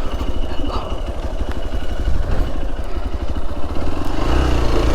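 Single-cylinder motorcycle engine running at low revs, its low rumble growing louder near the end.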